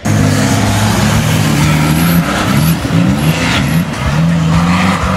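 Modified Suzuki Samurai off-road special's engine revving hard, its pitch climbing and dropping several times as the throttle is worked over rough ground.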